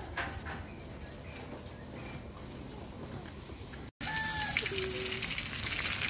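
A steady high insect drone over outdoor background with a few faint clicks, then, after an abrupt cut about four seconds in, a whole ikan baung (river catfish) deep-frying in a wok of hot oil, sizzling loudly. A few short pitched calls sound over the sizzle.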